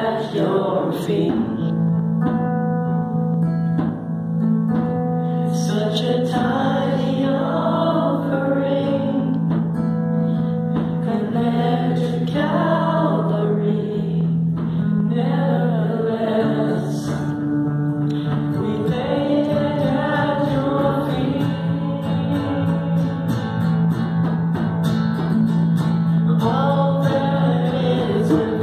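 Live worship music: a man singing a slow melody to guitar, with long held low notes underneath.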